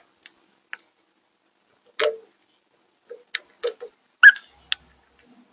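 A dozen or so irregular sharp clicks and taps, some with a duller knock beneath them, the loudest about four seconds in.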